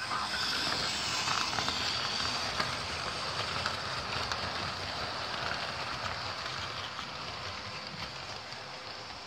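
Model train running past on the track: the whirr of its small electric motor and the rattle of its wheels on the rails. It is loudest in the first seconds and slowly fades as the train moves along.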